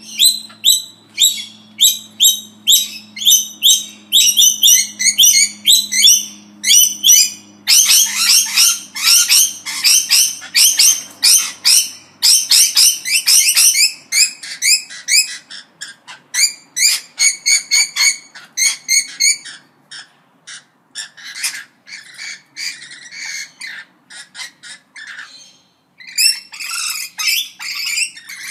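Parrots chattering: a rapid run of short, high-pitched calls, thickest about a third of the way in, then thinning, with a short pause before a last burst near the end.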